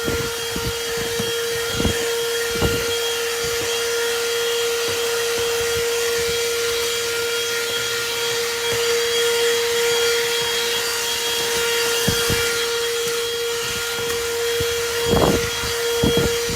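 THISWORX 12-volt handheld car vacuum running with a steady high motor whine and a rush of air. A few short knocks and bumps sound over it.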